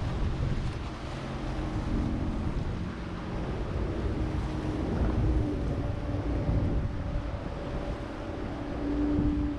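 A boat's engine running with water wash and wind buffeting the microphone, a steady low hum that grows stronger near the end.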